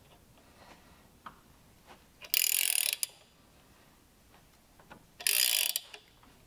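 Ratcheting wrench clicking on its return stroke twice, about two seconds in and again about five seconds in, each time for about half a second. Between the clicks it slowly turns a screw-type installer tool that presses a new cam bearing into a Milwaukee-Eight engine case, the bearing getting tighter as it nears seating.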